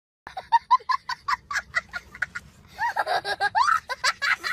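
High-pitched laughter sound effect: a quick run of short 'ha-ha' pulses, about five a second, turning into longer rising and falling laughs after about three seconds.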